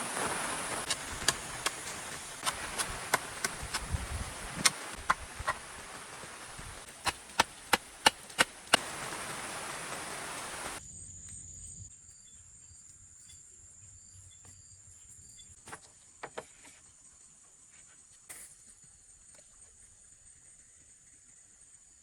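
Sharp knocks, like wood being chopped, over a steady hiss of rain. About eleven seconds in it cuts to quieter forest sound: insects buzzing steadily and chirping about twice a second, with a few scattered knocks.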